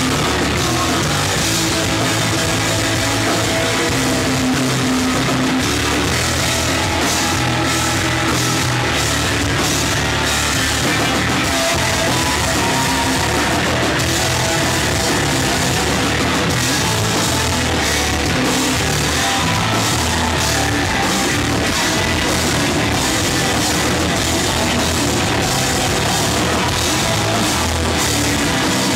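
Rock band playing loudly, with distorted guitar and a drum kit driving a steady beat with cymbal hits.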